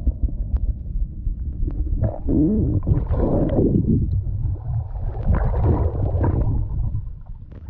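Muffled underwater noise picked up by a submerged camera: water moving and rumbling against the housing, with a louder, wavering gurgling stretch from about two seconds in that fades near the end.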